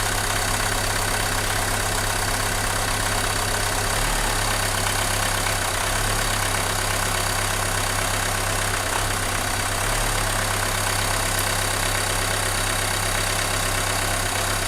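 Renault Mégane II engine idling steadily with the electrical connector on cylinder four pulled off, so that cylinder is cut out during a cylinder-by-cylinder test for a misfire and vibration.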